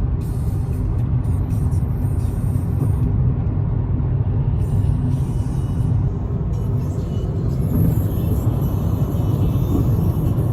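Steady road rumble inside a moving car's cabin.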